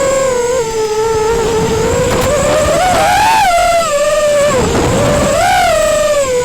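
FPV quadcopter's brushless motors whining through the video transmitter's onboard microphone. The pitch swings up and down with the throttle, climbing around three seconds in, dipping near five seconds, then rising again.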